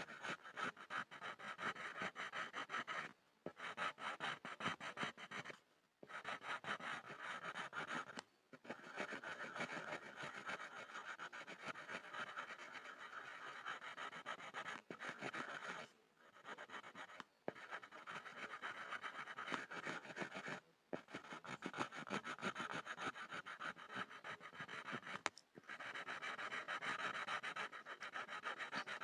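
Pencil scribbling on a board: fast back-and-forth scratching strokes, broken by brief pauses about seven times.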